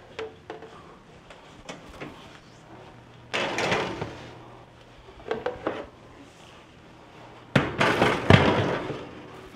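Metal baking sheets being loaded into a wall oven, clattering and scraping on the oven racks and door. This comes in two sudden noisy bursts about four seconds apart, with a few light clicks between them.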